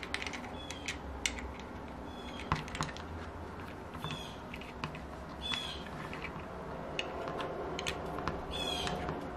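Light clicks and taps of small metal parts as a Magnum FS30 four-stroke model engine is handled and worked apart by hand, with a few short high chirps scattered among the clicks.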